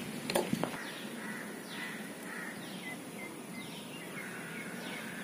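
A bird chirping repeatedly: a run of short falling chirps, about two a second, over steady outdoor background noise. A sharp click comes about half a second in.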